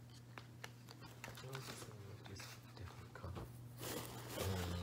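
Clothes and a shopping bag being handled: crinkly rustling and small clicks, with a louder rustle near the end. A steady low electrical hum runs underneath.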